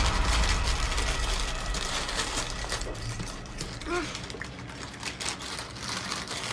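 Lay's chip packets crinkling and rustling as they are handled, with a run of small irregular crackles.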